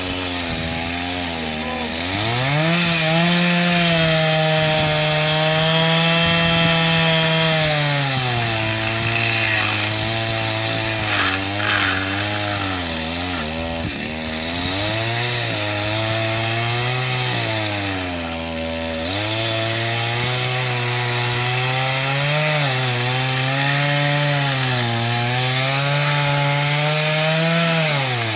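Stihl MS 250 two-stroke chainsaw running hard and cutting wood, its engine pitch climbing as the throttle opens, then sagging and recovering repeatedly as it works. About two-thirds through it briefly drops toward idle before revving up again.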